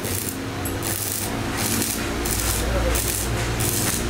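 Stick (arc) welding on square steel tubing: the electrode's arc crackles and sizzles in uneven spurts, over a low steady hum.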